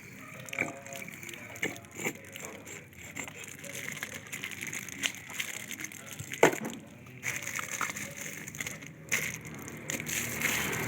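Scattered small clicks and knocks of hands working with bottles and the battery, with one sharper knock about six and a half seconds in.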